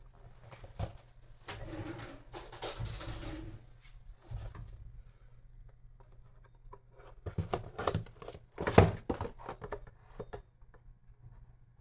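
Handling of the product's packaging. A rustle lasts about two seconds, then comes a run of clicks and knocks, the loudest near the nine-second mark.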